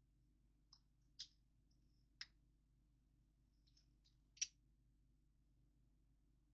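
Lego plastic pieces clicking as they are handled and pressed onto the model: about six small, sharp clicks, the loudest about four and a half seconds in.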